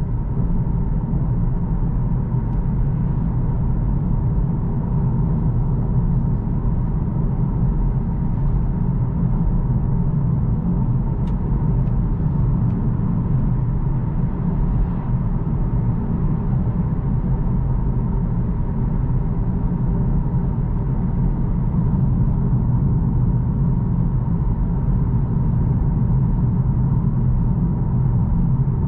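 Steady low road and tyre rumble with drivetrain noise, heard inside the cabin of a Mercedes-Benz CLA 250e plug-in hybrid cruising at about 50 mph.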